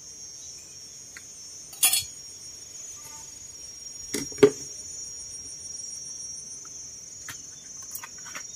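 Steady high-pitched insect chirring throughout, with two sharp knocks about two seconds and four and a half seconds in as a knife cuts into a banana blossom, and a few soft clicks near the end.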